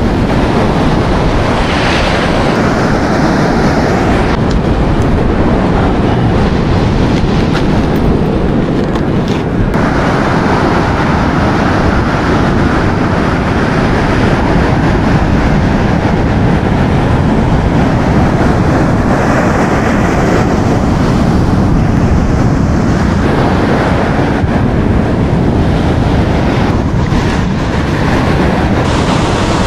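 Rough ocean surf breaking and washing up the beach, with wind buffeting the microphone, as a loud, steady rush of noise.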